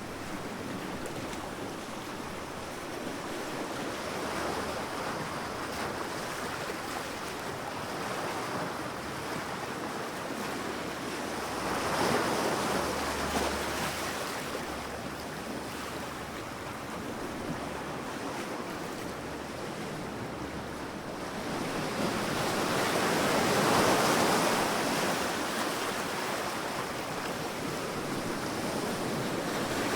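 Sea waves washing onto a sandy beach: a steady wash of surf that swells as a wave breaks about a third of the way in, again around two-thirds in, and once more near the end, with some wind noise on the microphone.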